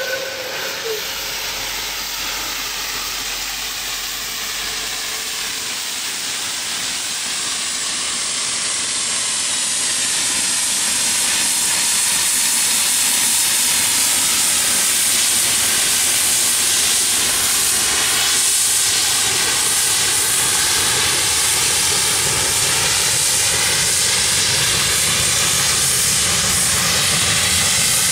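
Heisler geared steam locomotive No. 6 working past at close range: a loud, steady rush of steam and running noise that grows louder over the first dozen seconds as the engine draws level, then holds. The last note of a steam whistle dies away in the first second.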